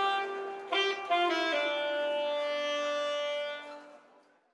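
Saxophone playing a short phrase: a few quick notes, then one long held note that fades away near the end.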